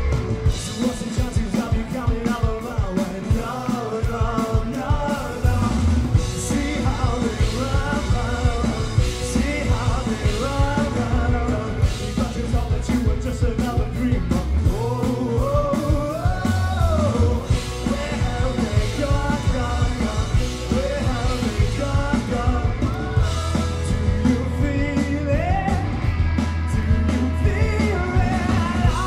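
Live rock band playing, with a male lead voice singing over drum kit, electric guitar and electric bass.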